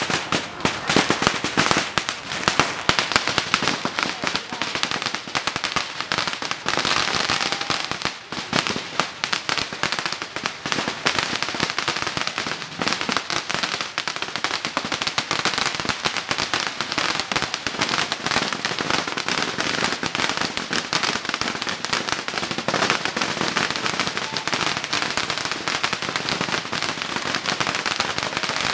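Long strings of firecrackers going off in a rapid, unbroken crackle of bangs, dipping briefly about eight seconds in.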